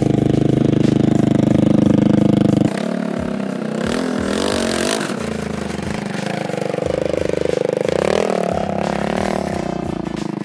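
A 500cc go-kart engine idles steadily close by. About two and a half seconds in it cuts abruptly to the engine revving up and down as the kart accelerates away and drives off.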